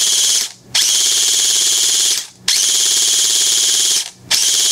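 KWA SR10 airsoft electric gun with a 2GX gearbox firing full auto on a 9.6-volt battery, its motor and gearbox cycling in a fast, steady buzz. It fires long bursts broken by three short pauses, about half a second, two and a quarter, and four seconds in.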